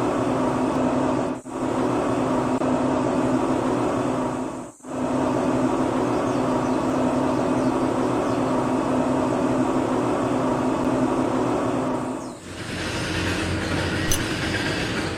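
Small electric motor running steadily with a whirring hum, cut off abruptly and resumed three times. After the last break it carries more hiss.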